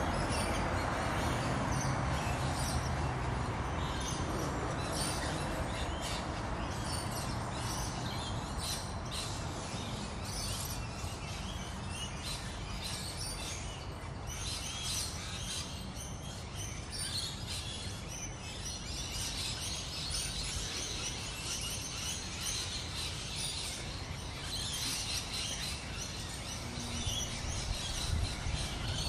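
Birds chirping with many short, high calls over a steady low rumble of background noise, the rumble stronger near the start and the chirping busier in the second half.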